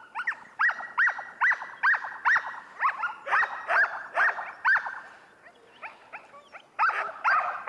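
Harnessed Samoyed sled dogs barking: a run of sharp, high-pitched barks about two a second, a pause about five seconds in, then two more barks near the end.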